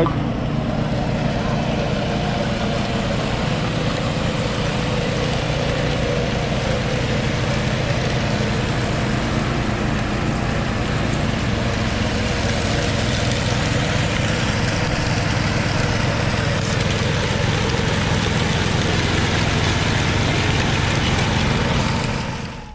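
Power trowel engine running steadily while the trowel finishes the concrete slab.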